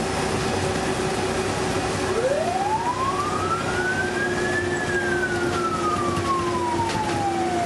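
A fire engine's siren, heard from inside the cab, winding up for about two seconds and then slowly falling away, over the truck's steady engine and road noise.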